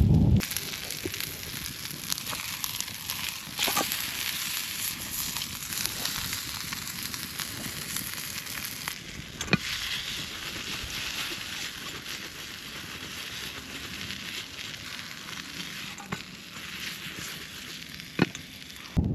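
Food sizzling in a frying pan over a campfire: a steady hiss, with a few sharp clicks or pops now and then.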